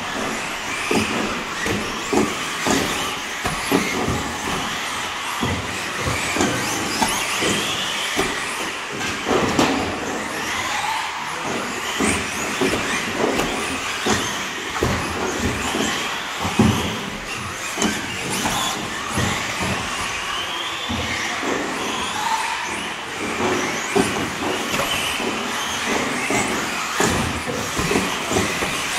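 Electric 1/10-scale RC off-road buggies, brushless motors whining up and down in pitch with the throttle, and many short knocks from the cars landing and bouncing on the track.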